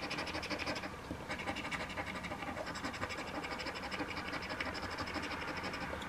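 A coin scratching the coating off an OLG Payline scratch-off lottery ticket in rapid back-and-forth strokes, with a short pause about a second in.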